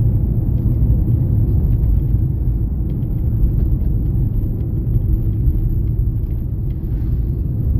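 Steady low rumble of a car driving along a road, heard from inside the moving car.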